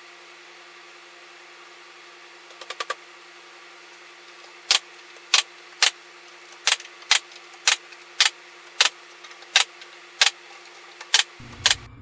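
A quick run of four faint clicks, then about a dozen sharp clicks or taps, roughly one every half second, over a steady low hum.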